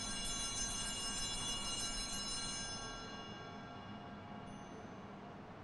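Altar bells rung at the elevation of the chalice, marking the consecration of the wine; many high ringing tones fade away over about three seconds.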